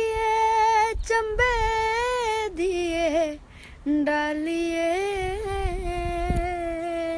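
A woman singing unaccompanied, holding long, gently wavering notes in two phrases with a short pause about three and a half seconds in.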